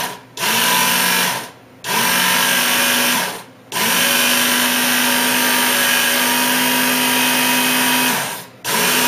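Work Sharp Knife & Tool Sharpener's electric motor and abrasive belt switched on and off in repeated runs, each spinning up and winding down: a few short runs, then one long run of about four seconds, and another starting near the end. The sharpener is being pulsed to check that the belt tracks straight before sharpening.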